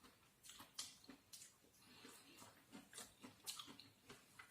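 Near silence with faint, scattered small clicks and crackles.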